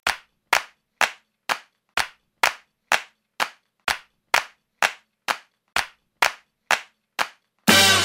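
Hand claps on a steady beat, about two a second, the count-in of a funk track; just before the end the full band comes in.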